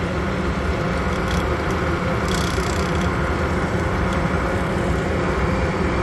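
RV propane furnace blower running, pushing a steady rush of air out through a small heat register close by. The speaker calls this furnace extremely loud.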